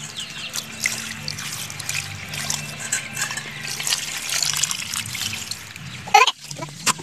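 Cut fish pieces being washed by hand in water in a metal bowl: splashing and trickling water as the pieces are rubbed and turned. A short pitched call cuts in near the end.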